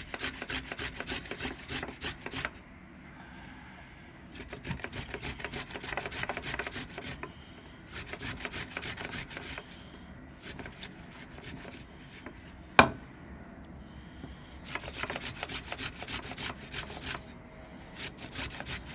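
Fresh ginger being grated on a hand grater: quick rasping strokes in runs of a few seconds, broken by short pauses. There is one sharp knock about thirteen seconds in.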